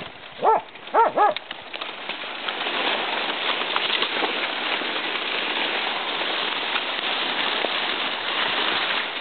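A hunting dog barks three short times in the first second and a half, baying a wild hog in the brush. A steady hiss follows for the rest.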